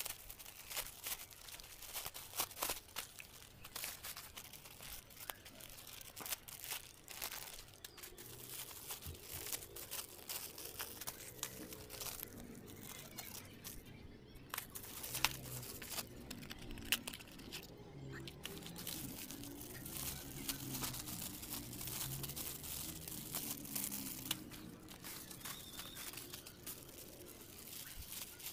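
Plastic courier mailers and poly bags being handled and pulled open by hand: irregular crinkling, rustling and tearing of thin plastic packaging.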